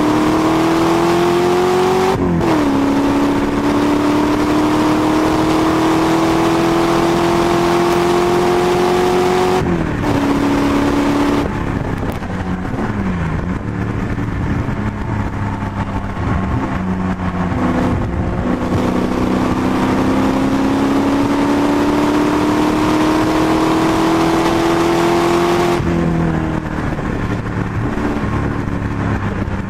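Onboard sound of a 330 bhp MGB's Rover V8 race engine driven hard on track: long pulls with the note climbing slowly, each broken by a sudden drop in pitch, about two seconds in, around a third of the way through, and again a little before the end.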